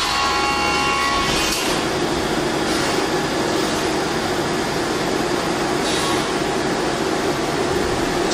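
Three-axis CNC milling machine cutting POM-C (acetal) plastic: the spindle and cutter run with a steady, noisy cutting sound. A few whining tones fade out about a second and a half in.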